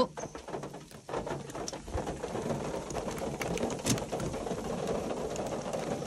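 A thump at the very start, then rain pattering steadily as many small ticks on the car's roof and windscreen, heard from inside the cabin.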